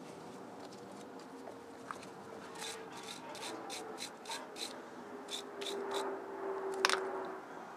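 Stiff brush scrubbing a Briggs & Stratton carburetor body: about ten quick scratchy strokes in the middle, then a single sharp click near the end.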